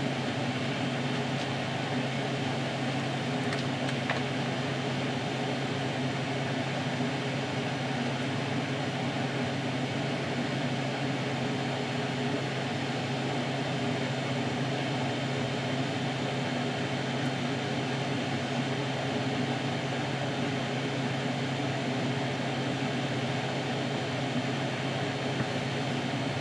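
A steady, even machine hum, like a fan or air-handling unit running, with a faint tick about four seconds in.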